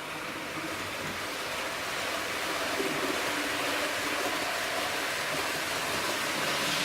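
Brawa model of a class 425 electric multiple unit running on a model railway: a steady rolling hiss of the train on the track, slowly growing louder, with faint steady tones underneath.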